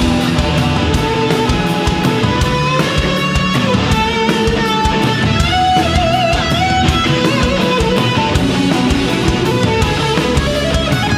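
Live rock band playing an instrumental passage: an electric guitar lead line with bent and wavering notes over a steady drum beat.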